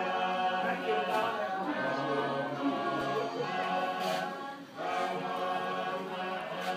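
A choir of many voices singing in harmony, holding long notes that change together, with a brief breath pause about two thirds of the way through.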